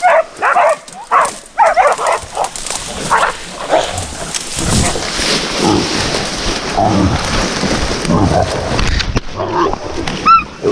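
Pig dogs barking in quick bursts at a bailed wild boar, then a loud rough scuffle of rustling and thumping as the dogs grab and hold the boar. A short high cry sounds near the end.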